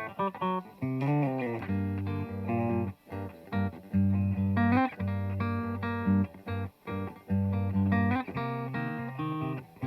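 Clean electric guitar through the rear-position DiMarzio P90 Super Distortion pickup of a Yamaha Revstar, playing a rhythmic run of picked notes and chords.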